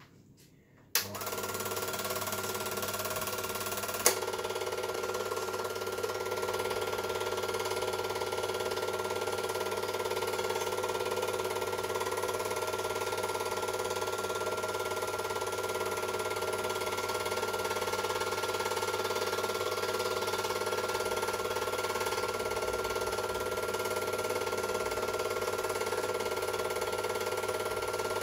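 Super 8 film projector running: a steady motor hum and whir holding several tones, starting with a sharp click about a second in, with another sharp click a few seconds later.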